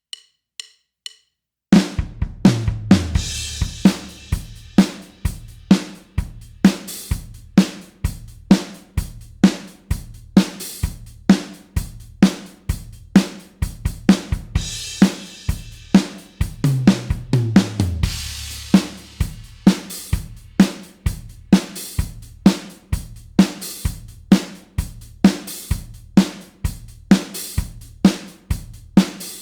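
Rock drum kit playing a steady beat on kick, snare and hi-hat. It comes in about two seconds in, after four light ticks, with cymbal crashes right at the entry and again about halfway through.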